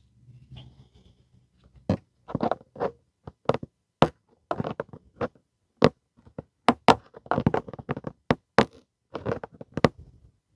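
Irregular knocks, clicks and scrapes of hand tools and parts being worked while a quick-release bumper fastener is tightened, several sharp hits a second after the first couple of seconds.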